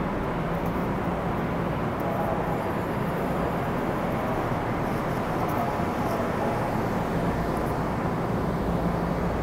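Steady rumbling hum of commuter trains at an underground station platform, with a few faint held tones over it.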